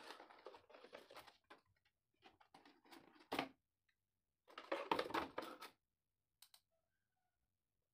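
Plastic packaging being handled as an RC transmitter is lifted out of its moulded plastic box tray: rustling and scraping with a few clicks, in two bursts, one at the start and one about five seconds in.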